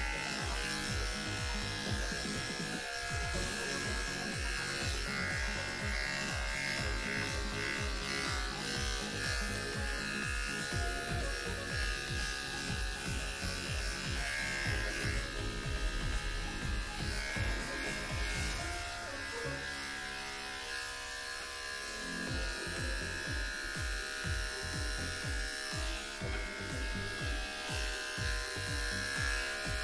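Electric pet clippers running steadily as they shave the fur off a cat's tail.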